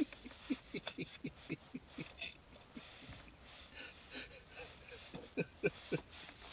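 A man laughing in short, rapid pulses, about three or four a second at first, fainter in the middle, with a few louder pulses near the end.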